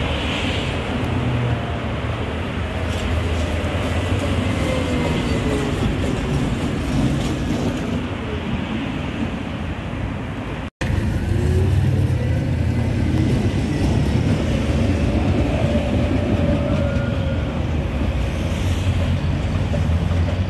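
A V3A-93 CH PPC articulated tram running on street rails, its motor whine falling in pitch as it slows. After a brief break in the sound about halfway, the whine rises again as the tram pulls away, with road traffic around it.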